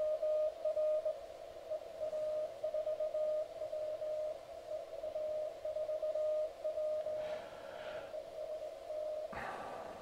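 Morse code (CW) signal received on a Mountain Topper MTR-3B QRP transceiver and played through a small speaker: a single mid-pitched tone keyed on and off in dots and dashes, a station calling CQ. The keying stops shortly before the end, followed by a soft click.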